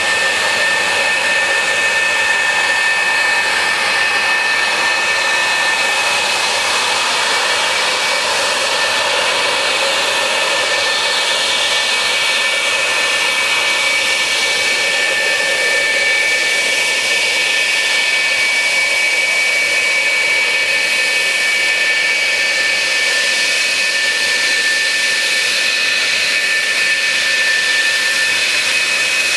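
F-4 Phantom II's twin J79 turbojets at low taxi power as the jet taxis: a steady, loud high-pitched whine with two held tones over a rushing hiss.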